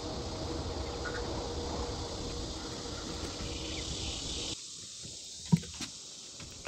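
Steady outdoor insect buzz with a low background hum. About four and a half seconds in it cuts off abruptly to a quieter room, and a single sharp knock follows about a second later.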